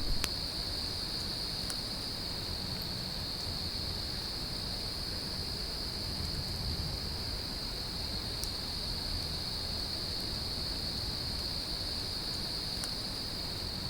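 Crickets trilling in one steady, unbroken high-pitched chorus over a low rumble of wind, with a few faint clicks.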